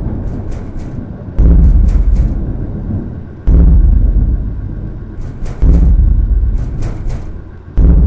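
Deep booming hits about every two seconds, each starting suddenly and fading away, with short crackles in between.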